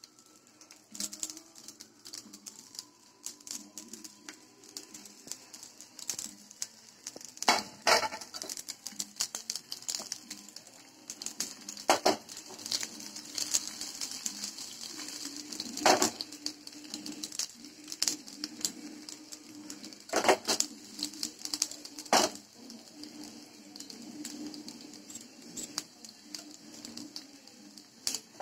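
Vermicelli cutlets shallow-frying in a non-stick pan, a steady crackling sizzle with a few louder knocks and clinks of cookware.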